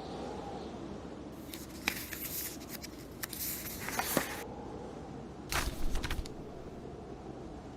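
Steady blizzard wind and a crackling fireplace, with paper rustles of book pages being turned: a longer one from about one and a half to four and a half seconds in, with a few sharp crackles, and a short one about six seconds in.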